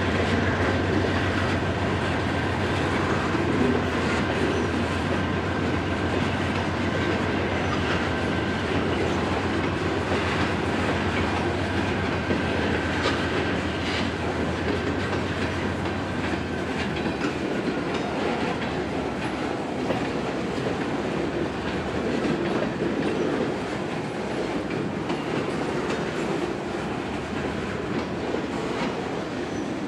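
CSX manifest freight train rolling along with a steady low hum and a thin high steady tone, both of which fade about 17 seconds in, over continuous rail noise with faint repeated ticks.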